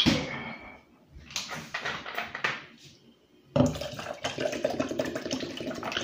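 A plastic soda bottle handled with short clicks and rustles, then liquid sounds starting suddenly about three and a half seconds in as it is tipped up to drink.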